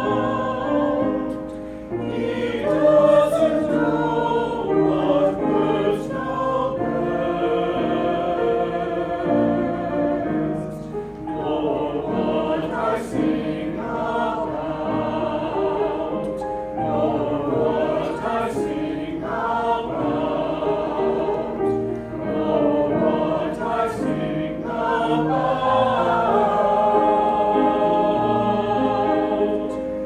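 Small mixed choir of men and women singing together, with brief breaks between phrases.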